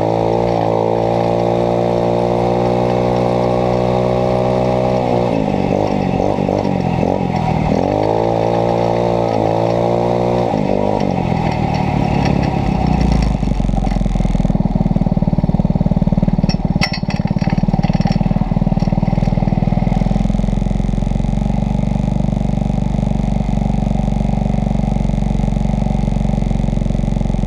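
Small 150cc single-cylinder dune buggy engine running at steady high revs, easing off and picking up again twice, then dropping to a steady low idle for the second half, with a few clicks in the middle.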